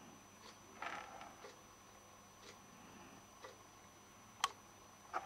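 Model flame-licker (vacuum) engine running slowly, giving faint, unevenly spaced clicks about once a second, with one sharper click near the end.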